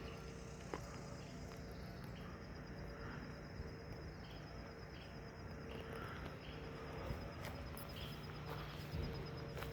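Insects trilling steadily at a high pitch over low outdoor background noise, with a few faint clicks.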